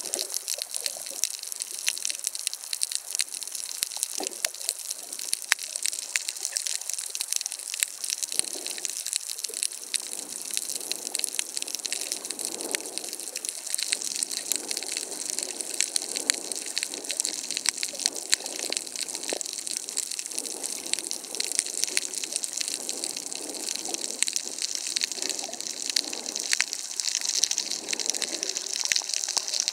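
Underwater sound over a shallow coral reef: a steady, dense crackle of tiny clicks over a hiss of water, with irregular lower swishing of water around the camera.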